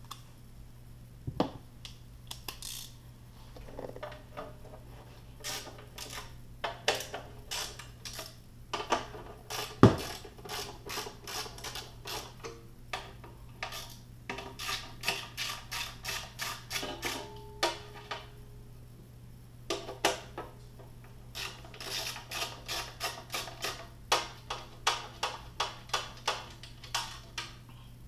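Hand screwdriver working the screws out of an amplifier box, making runs of quick clicks with scattered metallic taps, and one sharp knock about ten seconds in.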